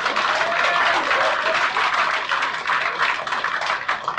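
Small club audience applauding at the end of a song, with a little laughter at first; the clapping thins out toward the end.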